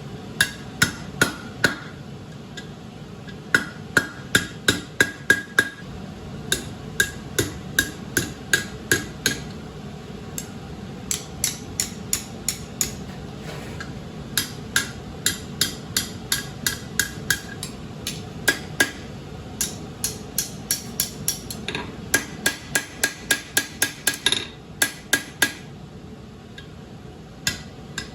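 Hand hammer striking hot steel on an anvil in runs of blows, about three a second, each blow ringing briefly, with short pauses between the runs. A steady background hiss runs underneath.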